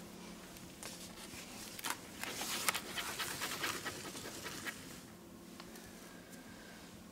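Pizza being pushed across a hard floor and under a door: a run of short scraping and rustling strokes about two seconds in, lasting a few seconds.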